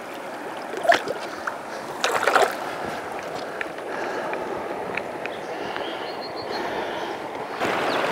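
Small stream running, with splashes and sloshing about one and two seconds in as a brown trout is released by hand into the water. Near the end the running water becomes louder and steadier.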